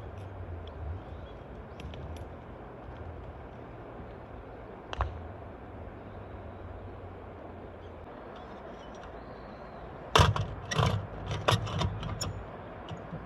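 A single knock about five seconds in, then a quick run of sharp metallic clinks and clatters near the end, the loudest part, like camp gear being handled, over a low steady rumble that fades out partway through.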